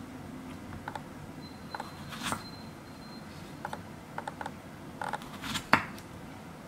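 Small kitchen knife slicing a strawberry on a wooden cutting board: a scatter of light taps and clicks as the blade meets the board, the sharpest one a little before the end.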